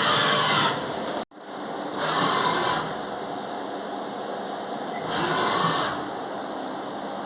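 Doosan DNM400 vertical machining centre running with a steady mechanical hum, broken by three short hissing bursts, near the start, about two seconds in and about five seconds in. The sound cuts out for an instant just over a second in.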